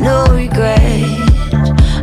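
Pop song with a woman singing over a steady drum beat of about two hits a second.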